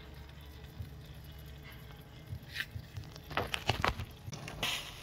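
Chicken drumsticks sizzling over a charcoal fire on a barrel grill's grate, with a few sharp crackles and pops in the second half, over a steady low hum.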